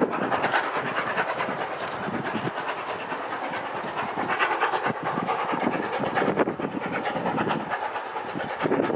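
Steam locomotive 3642, a NSW C36-class 4-6-0, working a passenger train, its exhaust beating in a fast, steady rhythm.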